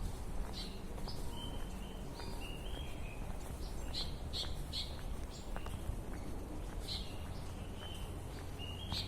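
Birds calling: short, high whistled notes and sharp chirps repeated every second or so, over a steady low rumble.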